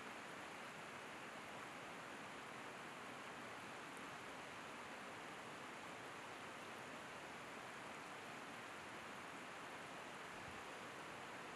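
Waterfall running steadily, an even rush of falling water with no breaks.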